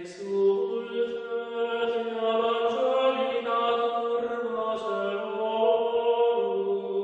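Music: chanting voices holding long notes over a steady low drone.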